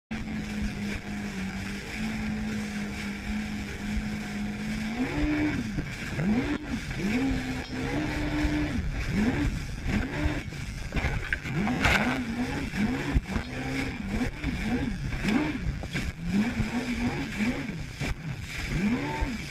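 Jet ski engine running at a steady pitch for the first few seconds, then rising and falling over and over, about once a second, as the craft crosses the chop. Splashing water and wind rush run under it.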